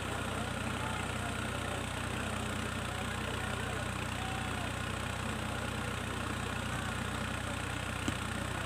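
A steady low hum runs throughout, with faint scattered voices from the crowd.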